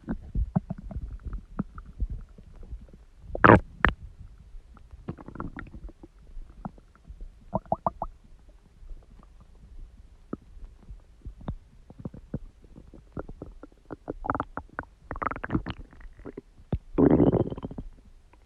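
Human stomach gurgling and growling in a run of irregular short pops and gurgles. There is a sharp, louder pop about three and a half seconds in, and a longer rumbling gurgle of about a second near the end.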